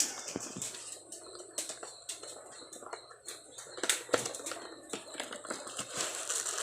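Packaging of a new car air filter being opened and handled: irregular crinkling, rustling and sharp crackles.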